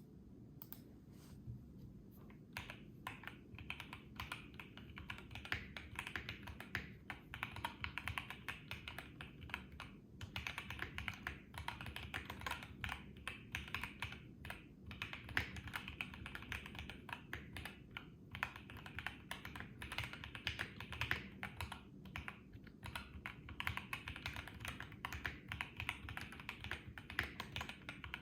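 Typing on a BM65 mechanical keyboard with stock Gateron CJ switches and PBT keycaps, foam-, tape- and stabilizer-modded: a few key clacks at first, then fast continuous typing with a few brief pauses.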